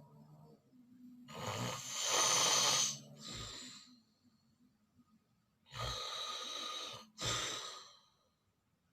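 A person snoring: two snores about four seconds apart, each a long noisy breath followed by a short one.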